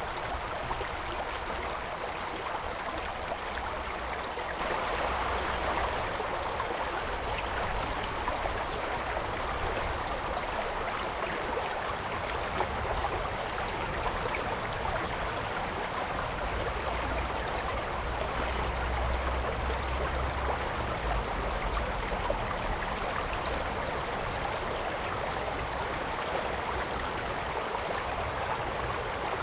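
A mountain stream flowing, its water rushing and splashing over rocks in a steady wash. It grows a little louder about five seconds in.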